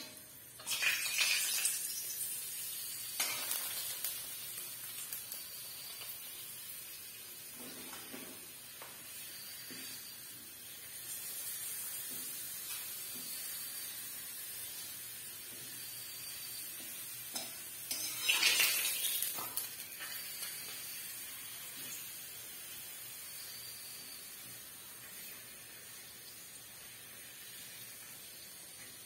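Papad frying in a wok: a steady sizzle with louder bursts of sizzling about a second in and again just past the middle, and a few light scrapes and clinks from a metal spatula against the wok.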